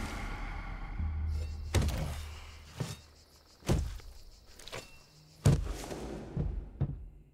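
Heavy blows landing with dull thunks, about five at uneven intervals, the loudest about two thirds of the way through, over a low rumble that fades out in the first half.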